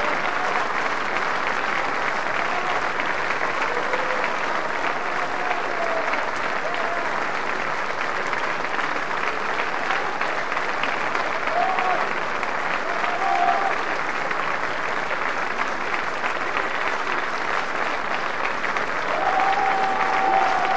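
Live opera-house audience applauding steadily throughout, with a few voices calling out over the clapping.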